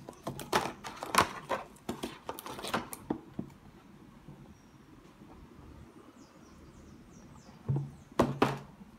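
Handling noise from a cardboard toy box and plastic animal figurines being moved about: a run of clicks and taps in the first few seconds, then two louder knocks near the end.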